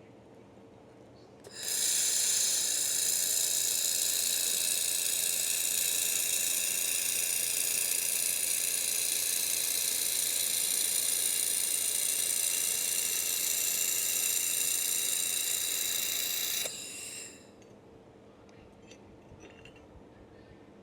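3000 W laser welder at work: a loud, steady hiss that starts suddenly about a second and a half in, holds for about fifteen seconds, then dies away.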